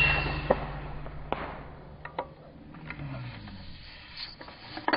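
The report of a PCP air rifle shot dying away, followed by several sharp clicks and knocks, the loudest cluster near the end.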